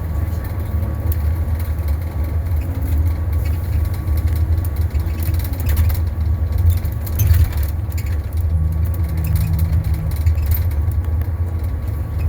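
2021 Blue Bird Vision school bus running, a steady low engine and road rumble with no break.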